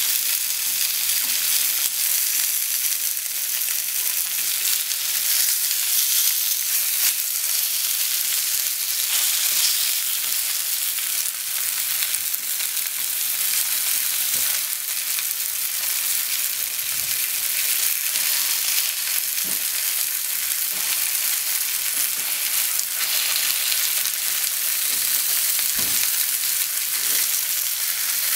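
Pork slices and sliced onion sizzling in oil in a frying pan, a steady frying hiss, with a few light taps as the slices are turned with wooden chopsticks.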